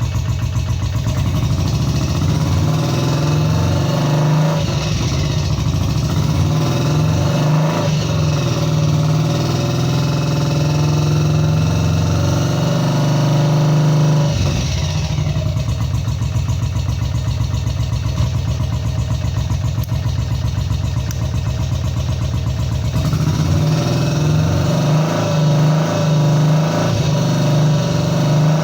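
BSA C15's 250 cc single-cylinder four-stroke engine running, the revs rising and falling; they drop back about halfway through and pick up again near the end.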